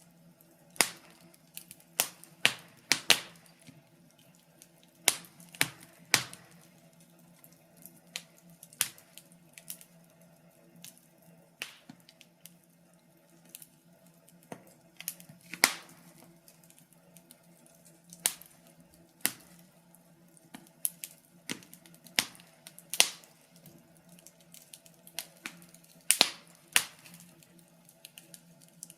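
Wood fire crackling in a fireplace: irregular sharp pops and snaps, a few clearly louder than the rest, over a faint steady low hum.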